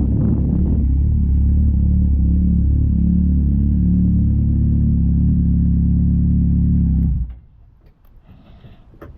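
Wind buffeting a GoPro Hero 9's microphone: a loud, steady low rumble that drops away suddenly about seven seconds in.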